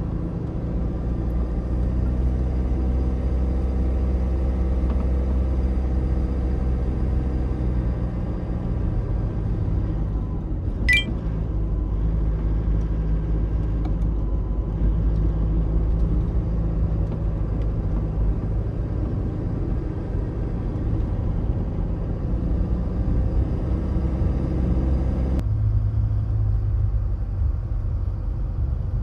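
A van being driven on the road, heard from inside the cabin: steady engine and road rumble. A brief sharp high squeak about eleven seconds in, and the rumble changes abruptly near the end.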